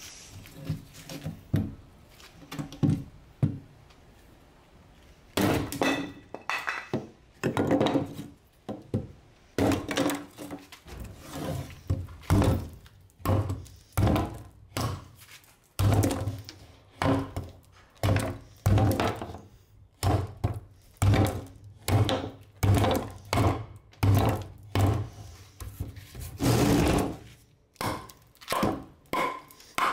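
Hand-forged hatchet chopping into a weathered wooden board, each blow a wooden thunk, coming about once a second once the chopping gets going. The first few seconds hold only a few lighter knocks.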